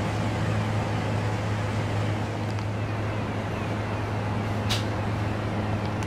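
Steady low mechanical hum of a cruise ship's onboard machinery, heard from its deck, with a single short click about four and a half seconds in.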